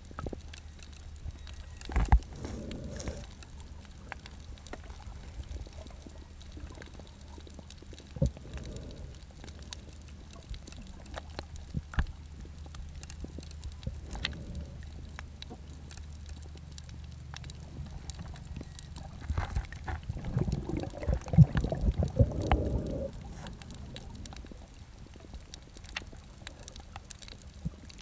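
Muffled underwater sound of a snorkeler moving through the water, heard through a waterproof camera pouch: a steady low rumble with scattered sharp clicks and short bursts of bubbling, swishing water. The loudest bursts come about twenty seconds in.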